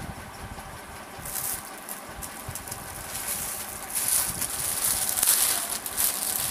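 Clothing rustling as it is handled: a brief rustle about a second in, then louder, continuous rustling and crinkling through the second half.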